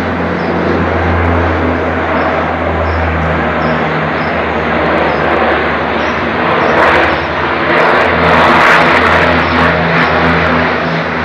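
Propeller engines of a firefighting aircraft droning steadily, growing louder from about six and a half seconds in as it passes nearer, with a few sharp clicks.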